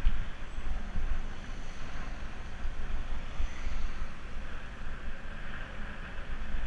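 Wind buffeting the microphone of a camera on a moving bicycle: a gusty low rumble with a steady hiss over it.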